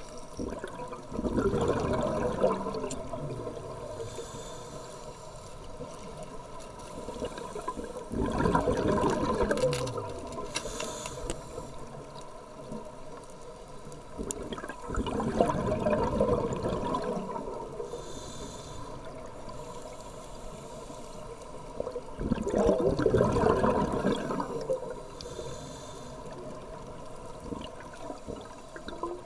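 Scuba diver breathing through a regulator underwater: four bursts of exhaled bubbles about seven seconds apart, each lasting two to three seconds, with a faint steady tone underneath.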